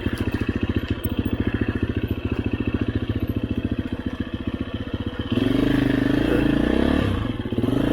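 Motorcycle engine idling with an even, rapid pulsing beat. About five seconds in, the throttle is opened and the engine runs louder for about two seconds before dropping back to idle.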